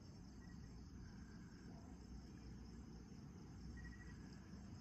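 Faint, steady night insect chorus, a continuous high trill of crickets, over a low background rumble. A couple of brief, thin higher notes come through, once early and once about four seconds in.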